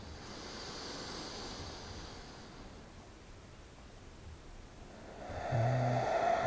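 A man's slow, deep yogic breathing (three-part breath, dirga pranayama): a soft drawn-in breath, then from about five seconds in a louder breath out with a faint hum of the voice in it.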